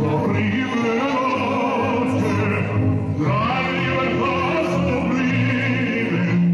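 Recorded anthem playing: an orchestra with operatic singing, held notes sung with vibrato over sustained instrumental chords.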